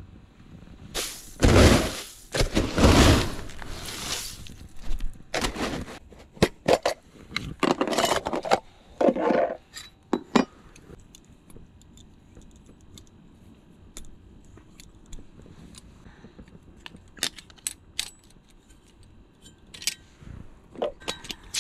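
A small gas camping stove and its metal and plastic parts being handled and assembled: clinks, clicks and scrapes. Loud rustling handling noise fills the first half, then scattered sharp clicks.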